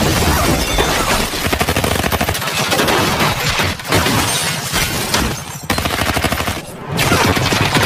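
Rapid, sustained gunfire from several guns, many shots in quick succession, with glass shattering; the firing drops off briefly a few times.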